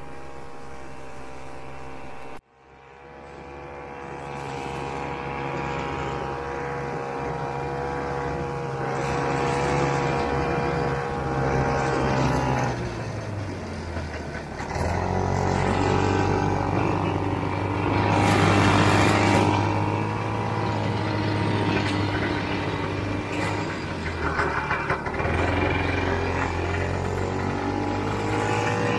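1969 Ski-Doo Olympique's 320cc single-cylinder two-stroke engine running while the sled travels along a deep-snow trail. The sound cuts out suddenly about two seconds in and fades back. The engine note dips around the middle, then comes back louder as the throttle opens.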